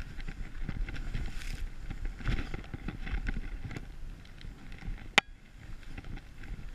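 Skis sliding and scraping through snow on a downhill run, with wind rushing over the camera's microphone. One sharp click about five seconds in.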